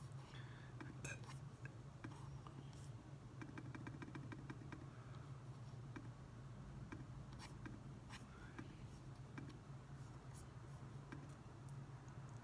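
Faint steady low hum under sparse light clicks and taps of work at a desk, with a quick run of about a dozen even clicks a few seconds in.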